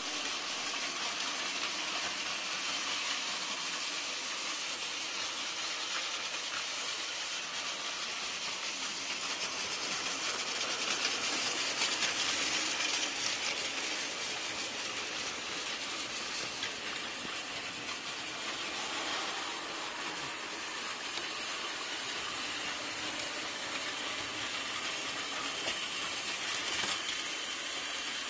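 Battery-powered Plarail toy trains running on blue plastic track: a steady whir of small motors and gears with faint clicking of wheels over the track joints, swelling briefly as a train passes close by.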